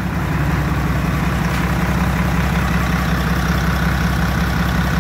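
Isuzu 6HL1 inline-six diesel truck engine idling steadily. It runs smoothly, with no piston slap from the number 6 cylinder.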